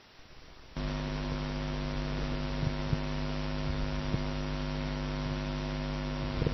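Steady electrical mains hum with a stack of even overtones, switching on abruptly about three-quarters of a second in, with a few faint ticks over it.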